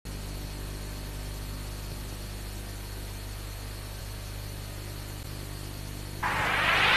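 Steady low electrical hum and faint hiss from the blank start of a VHS tape. About six seconds in, a loud hissing wash of noise comes in suddenly and keeps swelling: the start of the publisher's logo music.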